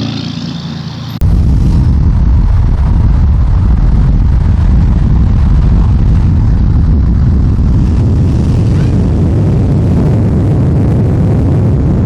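McLaren 570S on the move: a loud, steady low rumble with no clear rise or fall in pitch. It starts abruptly about a second in and cuts off at the end.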